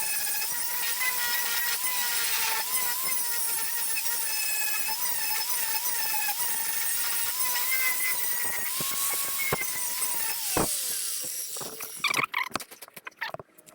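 Electric power tool running with a steady high whine and hiss, then switched off and winding down, its pitch falling, about ten and a half seconds in. Irregular short clicks and ticks follow near the end.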